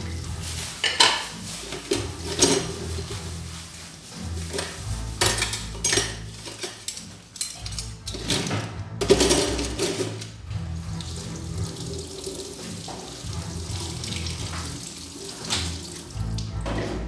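Dishes being washed by hand at a kitchen sink: the tap running and water splashing, with sharp clinks of plates, cups and cutlery knocking against the sink and a wire dish rack several times. Music plays underneath.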